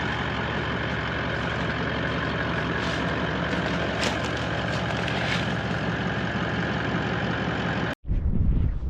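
Vehicle engine and road noise running steadily. Near the end it cuts off abruptly and gives way to wind buffeting the microphone.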